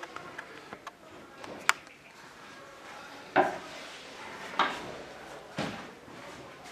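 Parts of a stackable shoe cabinet knocked and pressed together during assembly: a sharp click, then three hard knocks about a second apart.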